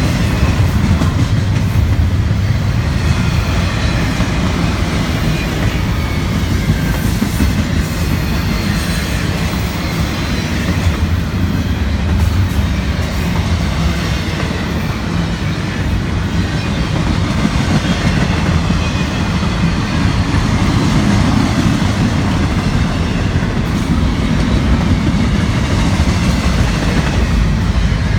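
Double-stack container well cars of a CSX intermodal freight train rolling past: a loud, steady rumble of steel wheels on the rails.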